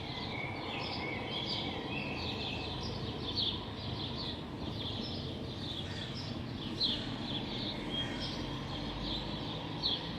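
Dawn chorus of small birds: many short chirps and song phrases overlapping, over a steady low rumble of distant city traffic.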